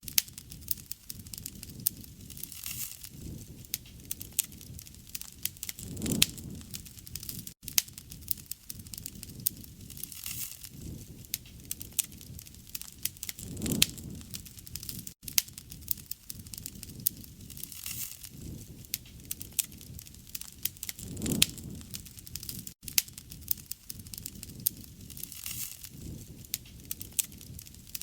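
Campfire crackling, with dense snaps and pops and a soft low rush that swells about every seven and a half seconds. There is a brief dropout in the sound at the same spacing.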